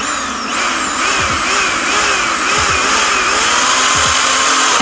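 Power drill boring a pilot hole into a desk, running steadily at full speed. It starts at the opening and gets louder over the first second.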